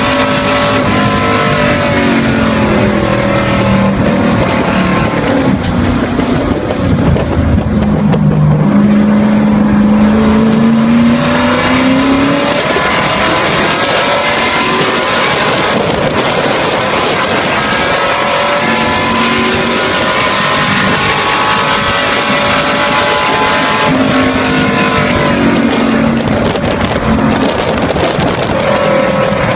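V8 race car engine heard from inside the cockpit, loud and at racing speed. Its pitch falls for the first several seconds under braking into a corner, climbs sharply as the car accelerates out, and climbs again near the end.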